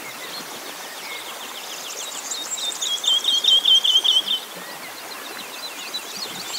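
Small birds singing outdoors: from about a second and a half in, a fast run of short, repeated high notes with fainter higher chirps over them, ending a little past halfway.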